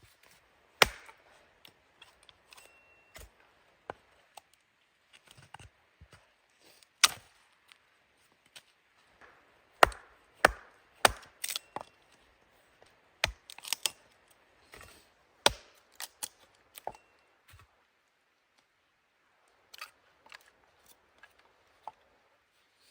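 Wood being chopped: sharp, irregular blows, a dozen or more of differing strength, with a pause of a couple of seconds late on.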